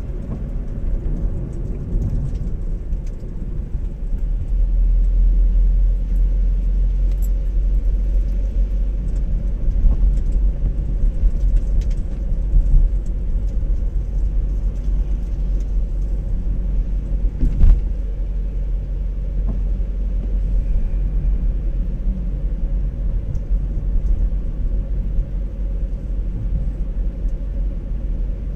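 Car driving on a wet road: a steady low rumble of engine and tyres, with one short thump about two-thirds of the way through.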